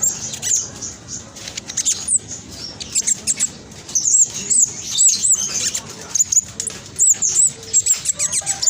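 Black sunbird singing a fast, tightly packed run of high-pitched chattering notes and squeaky slurred whistles.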